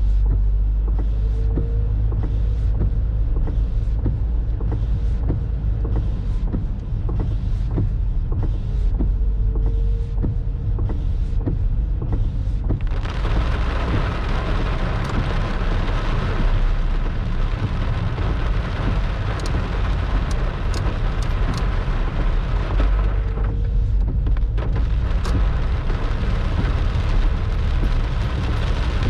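Torrential thunderstorm rain over a deep low rumble. At first it comes as scattered drops ticking close by; about 13 seconds in it thickens into a dense, steady downpour hiss, eases for a moment near the 24-second mark, then pours on.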